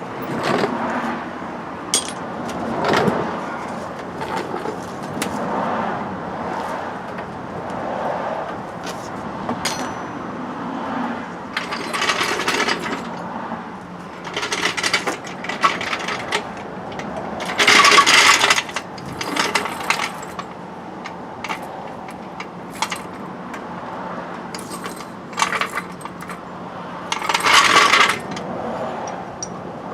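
Hand tools clinking and rattling against the steel front suspension parts of a Jeep Cherokee XJ as the shock and its mounting bolts are worked loose: many scattered clicks, with several short bursts of metallic rattling about a second long.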